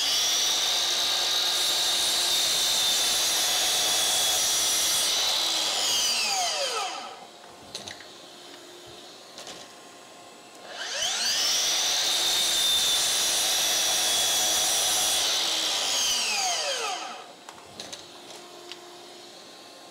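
DeWALT DCS781 60V MAX FlexVolt 12-inch sliding miter saw run twice. Each time its brushless motor and blade whine up to speed, run steadily for about five seconds, then wind down in a falling whine within about two seconds as the regenerative blade brake engages. Light knocks and clicks come between the two runs.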